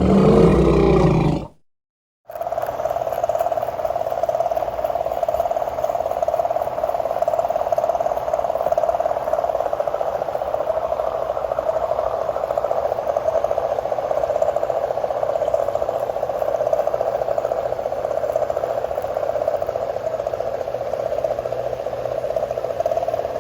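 Tiny electric motor and gear drivetrain of an SCX24 1/24-scale RC crawler running with a steady whine. It follows a louder, different sound that cuts off to a moment of silence about two seconds in.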